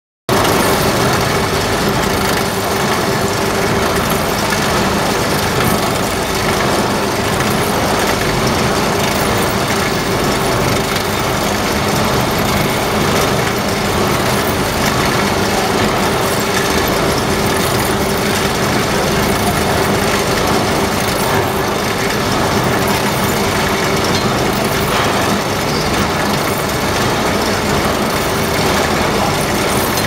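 Continuous biomass carbonization furnace running: loud, steady machinery noise with a constant hum, unchanging throughout.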